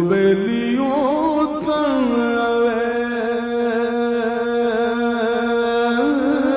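A man singing a Punjabi song: quick ornamented turns in the first two seconds, then one long held note that steps up in pitch near the end.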